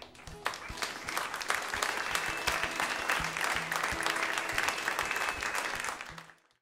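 Small club audience applauding at the end of a live acoustic song on a bootleg recording. The clapping builds over the first second or so, holds steady, then fades and cuts off shortly before the end.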